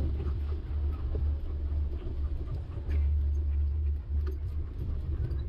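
Steady low wind rumble on the microphone and tyre noise from a bicycle rolling across asphalt while the dogs pull, with a few faint clicks.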